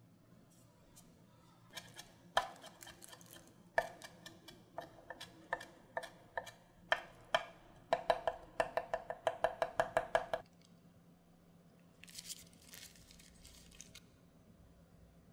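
Knife chopping on a cutting board: scattered single strokes, then a quick even run of about five chops a second that stops abruptly. A short scraping noise follows.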